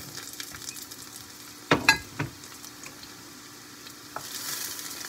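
Sliced mushrooms sautéing in oil in a metal frying pan, sizzling lightly, as a black serving spoon stirs them and knocks against the pan three times about two seconds in. The sizzle gets louder from about four seconds in.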